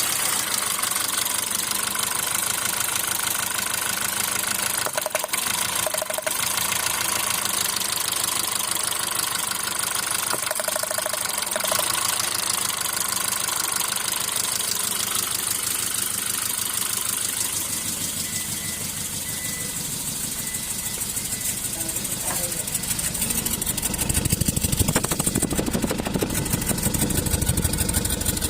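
Hyundai Grand i10 engine idling just after starting, with the misfire it is being checked for. The engine runs continuously, and its low end grows louder about three-quarters of the way through.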